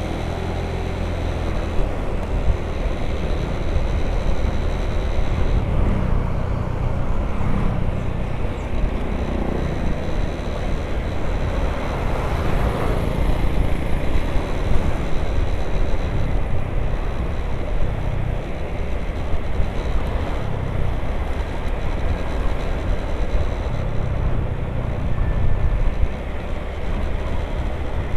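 Honda Vario 150 scooter being ridden along a road: a steady mix of engine and road noise, with wind on the camera microphone.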